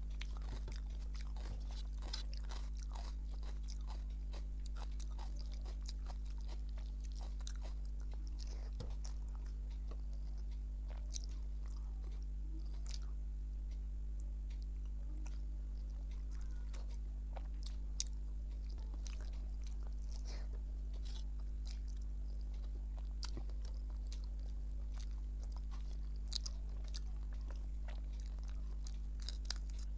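Close-miked chewing and biting of a meal of rice, mung dal, fish curry and fried brinjal, with many small wet mouth clicks and occasional crunchy bites. A steady low hum runs underneath.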